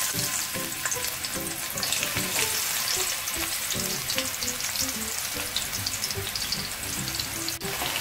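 Coconut pieces sizzling and crackling in hot coconut oil in an aluminium kadai, a steady dense frying sound that starts as they go into the oil.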